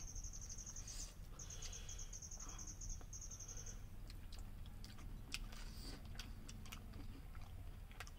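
People chewing food eaten by hand, with scattered soft clicks and smacks. A high, fast trill runs through the first three and a half seconds, broken briefly about a second in.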